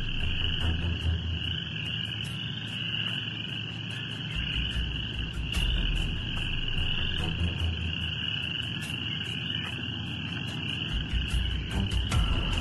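Outdoor ambience picked up by a bald eagle nest camera: a steady high-pitched chorus of calling animals, under a low rumble that swells and fades a few times.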